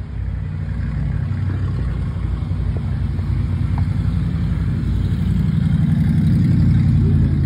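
A motor vehicle's engine running with a low, steady hum that grows louder toward the end.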